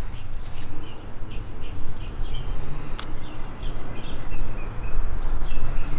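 A small bird chirping over and over in the background, short high chirps a few a second, over a steady low rumble. A single sharp click about three seconds in.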